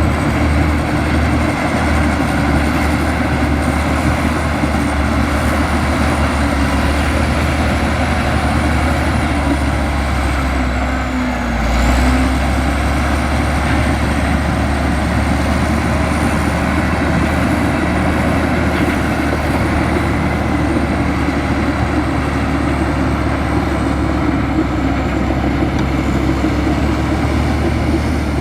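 Heavy diesel engine of a Komatsu bulldozer running steadily under work, with a thin high whine that drifts up and down in pitch. About twelve seconds in, the engine dips briefly and then surges.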